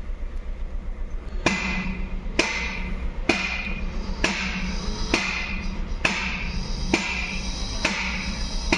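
Background music with a steady percussive beat of about one ringing strike a second, starting about a second and a half in, over a low steady rumble.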